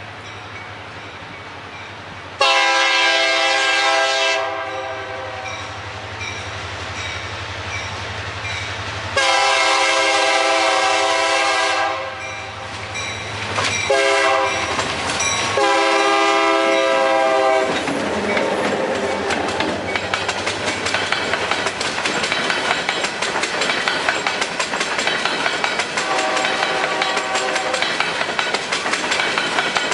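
Locomotive's Nathan Airchime K3LA three-chime air horn blowing four very loud blasts close by, long, long, short, long: the grade-crossing signal. The train then rolls past with wheels clicking steadily over the rail joints, and the horn sounds again, weaker, near the end.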